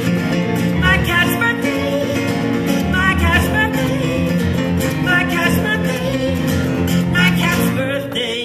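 Instrumental ending of a folk-country song: acoustic guitar strumming chords, with a slide guitar playing short gliding phrases over it about every two seconds.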